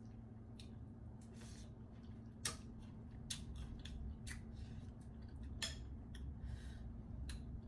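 Metal spoon clicking and scraping against a glass bowl, with irregular light clinks and one sharper clink about two and a half seconds in, alongside soft chewing.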